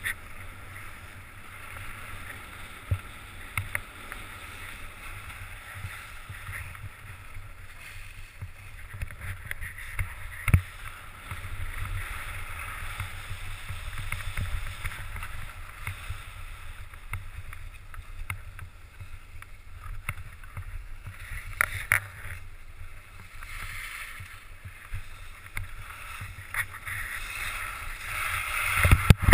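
Skis sliding and scraping over packed snow with wind rushing over a helmet-mounted GoPro, a steady swishing hiss with low rumble. A few sharp knocks break through, about ten seconds in, past twenty seconds and just before the end.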